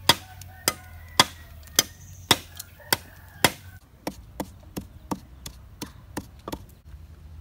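A blade chopping into bamboo stems, sharp strikes about twice a second. Then comes a wooden pestle pounding in a clay mortar, softer and quicker strikes about three a second, that stop about a second before the end.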